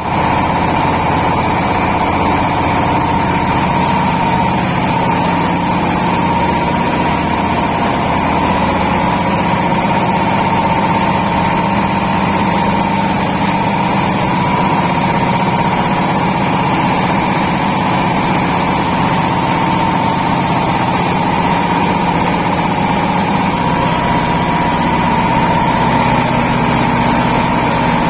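Rice milling machine running steadily while milling paddy, with a constant mechanical whine over a low hum.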